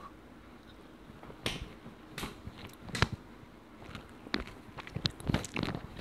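A child chewing food close to a clip-on microphone: scattered short, wet mouth clicks and lip smacks, few at first and coming more often in the last couple of seconds.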